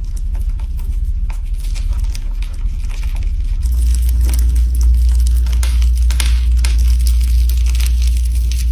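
Slime being worked by hand, with a run of fine crackling, crinkling clicks over a steady low rumble.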